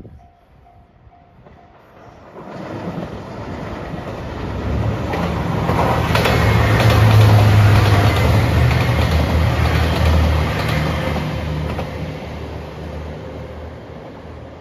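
JR Shikoku 2700 series diesel multiple unit passing close by: its diesel engines run with a steady low tone and the wheels click over the rails. It swells from about two seconds in, is loudest midway, then fades as the train moves away.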